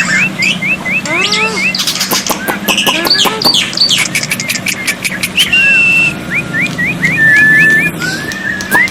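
Black-winged myna (jalak putih) song: quick runs of short rising whistles, sharp clicks and harsh chatter, with a long level whistle about two-thirds of the way through.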